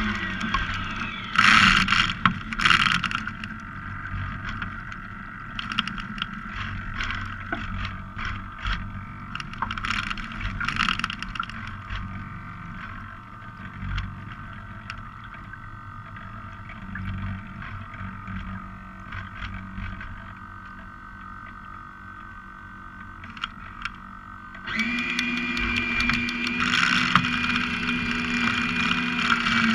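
Water splashing and slapping against the hull of a radio-controlled Volvo Ocean 65 model yacht under sail, with two loud splashes a couple of seconds in. A steady engine-like hum is there at the start and comes back about five seconds before the end.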